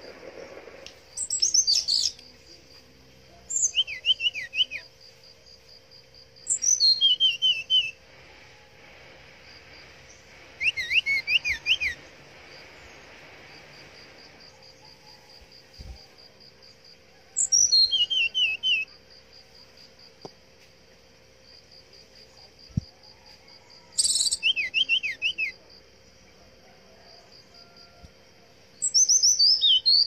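Brown-chested jungle flycatcher singing seven short phrases a few seconds apart. Each phrase is a quick falling run of high whistled notes that ends in a few rapid lower notes.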